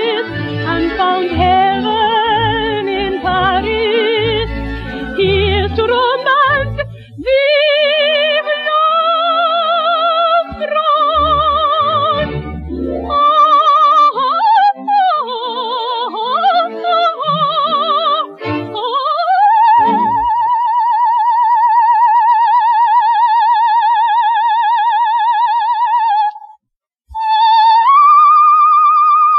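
Operatic soprano singing with vibrato: quick, shifting runs and slides give way to a long high note held for about seven seconds. After a brief break she slides up to a higher note and holds it.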